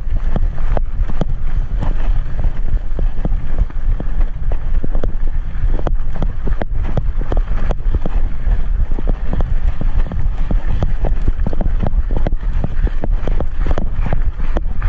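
Mountain bike riding on a dirt road, heard through an on-bike action camera: steady wind rumble on the microphone, with frequent clicks and rattles from the bike and tyres on the rough surface.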